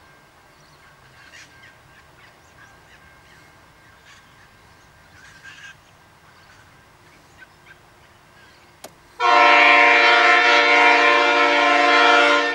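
Air horn of the approaching freight train's lead locomotive, NR 23, an NR class diesel. About nine seconds in it sounds one long, steady, loud blast of several tones together. The blast lasts about three seconds and stops near the end.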